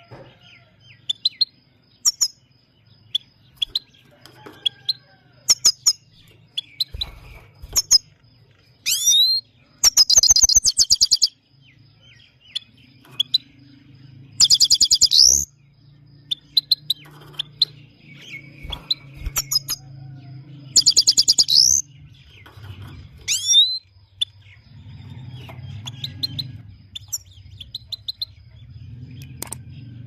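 Himalayan goldfinch singing: scattered high chirps and twitters, with three loud, buzzy rolling trills of about a second each, about a third of the way in, halfway, and about two-thirds of the way in.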